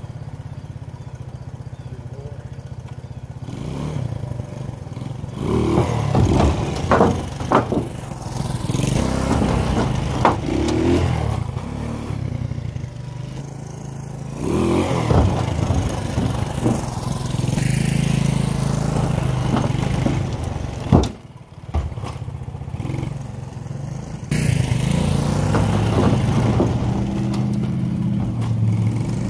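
Honda TLR trials motorcycle's four-stroke single-cylinder engine idling, then revving up and down as it is ridden slowly, with several sharp clanks along the way. About three-quarters through, the engine note drops away briefly and then picks up again.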